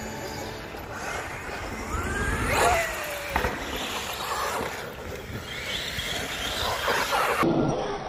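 Electric motors of large RC trucks whining as they are revved up and down, with pitch rising and falling, and a sharp knock about three and a half seconds in.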